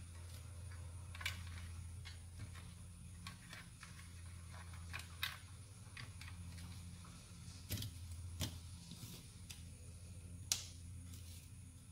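Scattered light clicks and taps of hand tools and small plastic RC-car chassis parts being handled and fitted, over a steady low hum. The sharpest click comes about ten and a half seconds in.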